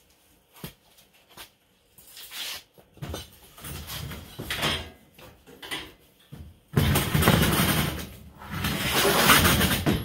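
Welded metal-tube trike frame being set down and slid across a wooden worktable: scraping and knocking noises, loudest over the last three seconds.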